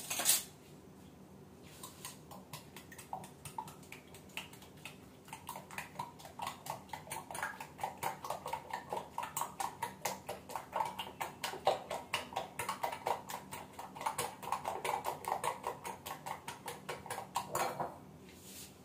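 Eggs being beaten with a steel spoon in a glass bowl: fast, steady clinking of the spoon against the glass, several strokes a second. It starts about two seconds in and stops shortly before the end.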